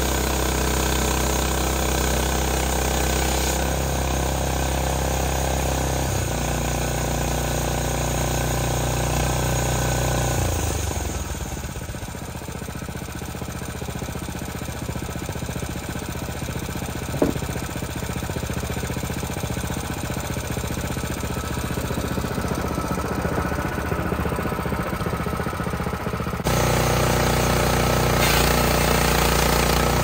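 Gasoline engine of a Hud-Son Hunter portable bandsaw mill running steadily. About ten seconds in it drops to a quieter, thinner idle, with a single sharp click partway through, and near the end it abruptly comes back at full, louder running.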